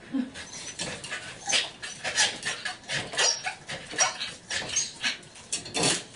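Corgi whimpering in short, high squeaky notes, among a string of short, irregular rasping sounds as it strains at the gate.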